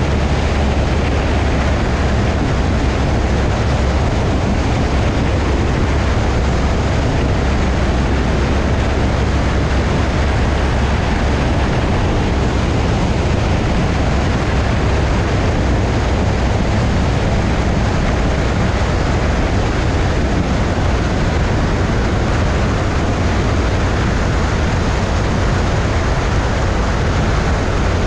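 180 hp Cessna 172's engine and propeller running steadily in flight, mixed with heavy wind rush over a microphone mounted outside the cabin on the wing strut. The sound is a constant, unchanging low drone.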